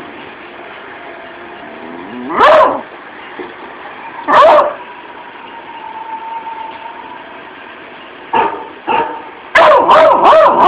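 One-year-old beagle barking: two single barks about two seconds apart, two shorter barks near eight seconds, then a quick run of several barks near the end.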